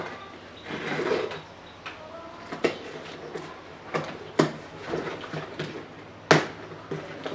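Cardboard parcel box being opened by hand: a rustling tear about a second in, then several sharp snaps and knocks of cardboard, the loudest near the end.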